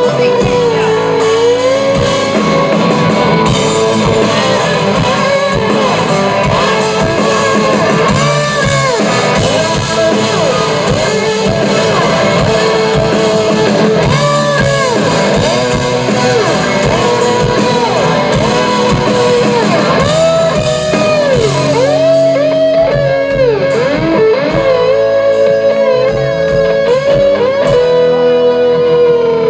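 Live rock band playing an instrumental passage, led by an electric guitar solo full of string bends, over bass guitar.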